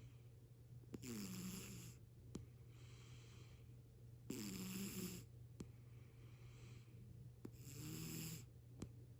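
Cat snoring quietly: three slow snoring breaths about three seconds apart. Each is a louder breath with a buzzing tone that falls in pitch, followed by a softer, airy breath. A faint steady hum runs underneath.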